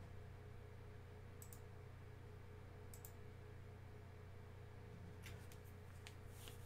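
Near silence with a low steady hum, broken by faint computer mouse clicks: a quick double click about a second and a half in, another at about three seconds, and a few more near the end.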